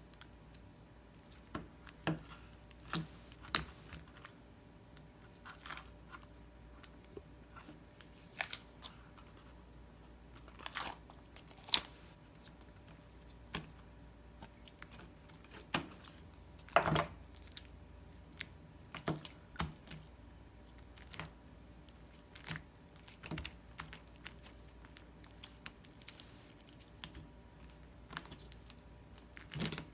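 Pink slime being kneaded, stretched and pressed against a table by hand: irregular sticky clicks and pops, a few of them louder.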